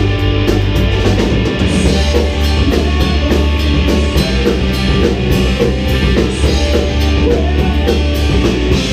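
Rock band playing live: electric guitars over a drum kit keeping a steady beat with regular cymbal hits.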